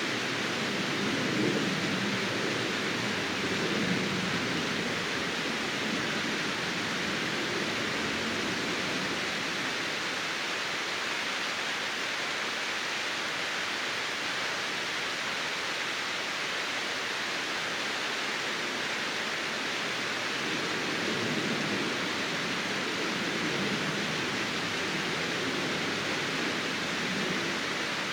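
Waterfall running: a steady, even rush of falling water, with soft lower swells near the start and again near the end.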